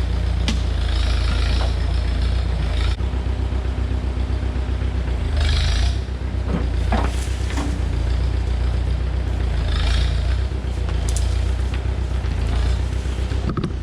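Tractor engine running steadily under work, with short bursts of hissing and scraping noise every few seconds.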